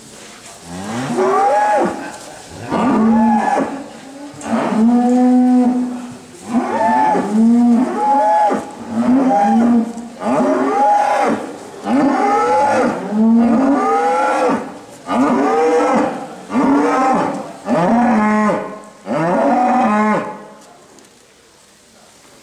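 Holstein-Friesian dairy cattle mooing, a long run of loud calls about one a second, several cows overlapping one another, until the calling stops about twenty seconds in.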